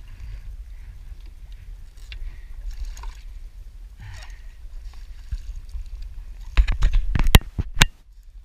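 Sea water slapping and splashing against a sit-on kayak as a small-eyed ray is held alongside, under a steady low wind rumble. About seven seconds in comes a quick run of loud knocks and thumps as the ray is hauled against the kayak.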